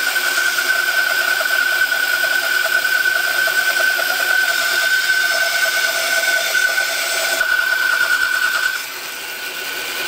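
Bandsaw ripping a wooden board lengthwise, a steady high whine over the noise of the cut. About nine seconds in the cut finishes, and the saw runs on more quietly.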